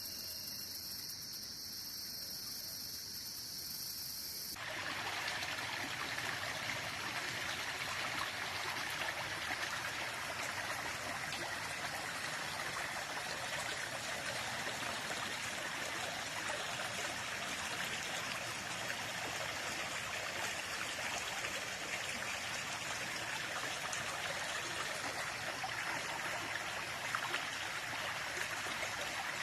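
A steady high insect chorus for the first few seconds, then, after a sudden change about four seconds in, a small stream of the Rouge River running and trickling steadily.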